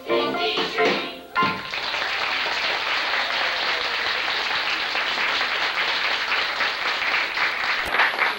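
A stage song ends on its last chord about a second in, and the audience then applauds steadily. A short electronic click sounds near the end, at a cut in the tape.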